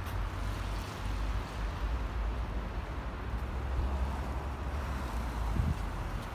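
Wind buffeting a phone's microphone outdoors: a steady low rumble with a light hiss above it.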